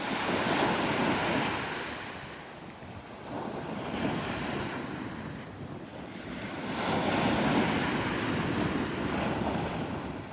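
Pacific Ocean surf breaking and washing on the shore, rising and falling in three swells, loudest about a second in and again around seven seconds.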